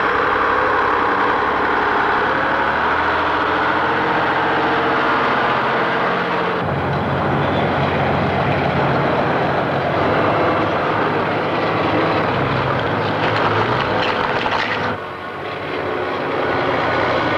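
Heavy diesel engines of earthmoving plant running: a loaded dump truck and a crawler bulldozer pushing clay fill. The engine note changes abruptly about six and a half seconds in to a deeper one, and the sound dips briefly near the end.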